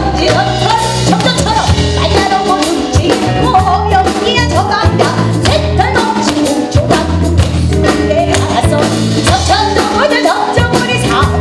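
Live band playing an upbeat instrumental with bass, drum kit and a gliding lead melody, with the clicks of tap shoes on a wooden stage over it.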